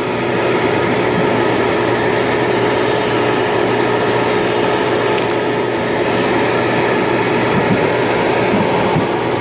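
Vacuum cleaner running steadily, its narrow crevice attachment sucking dust off a refrigerator's condenser coils.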